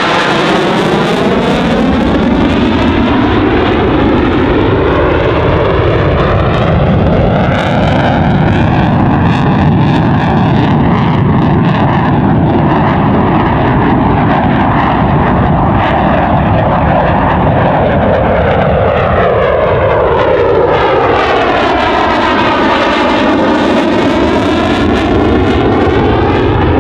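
F/A-18 Hornet twin jet engines running loud, most likely in afterburner, as the jet makes a low pass. The noise holds steady throughout, with a sweeping, phasing whoosh that falls and rises near the start and again in the last few seconds as the jet goes by.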